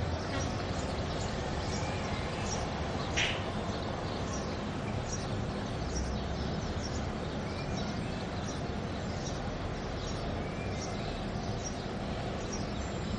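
Small birds chirping repeatedly in short high notes over a steady background hum. A single sharp click about three seconds in.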